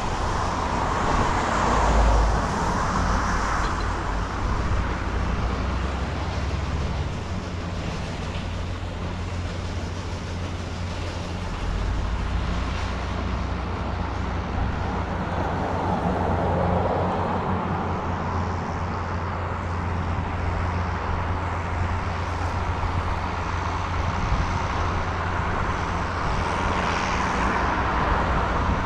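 Farm machinery engine running steadily with a low drone, under a rushing noise that swells and fades a few times.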